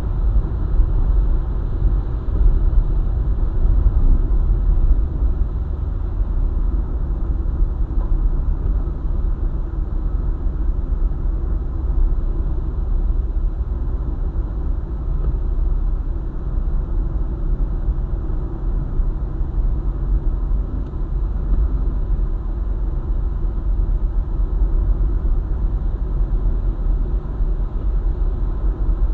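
Car driving at speed on a highway: a steady low rumble of road and engine noise, with no sudden events.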